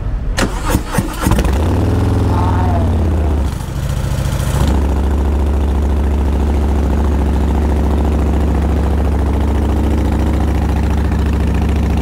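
Harley-Davidson Fat Boy's Milwaukee-Eight 114 V-twin being started: the starter clatters briefly and the engine catches about a second in. Its pitch rises and falls for a few seconds with a short dip, then it settles into a steady idle from about five seconds in.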